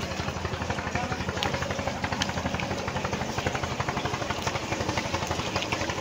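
Small boat engine running steadily with a fast, even chugging beat.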